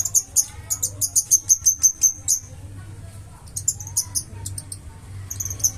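Flowerpecker singing a rapid series of very high, thin ticking notes. It comes in three bursts: a run of about two seconds at the start, a short one near the middle and another near the end.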